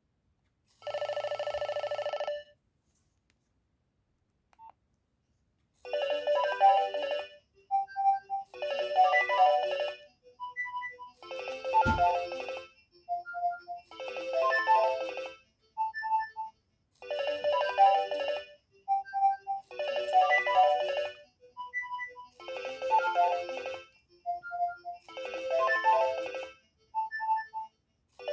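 Nokia 2300 mobile phone ringtone playing through the phone's speaker: a short melodic phrase of quick electronic notes that repeats about every three seconds, with a few single notes between repeats. It starts about six seconds in, after a brief steady tone and a pause.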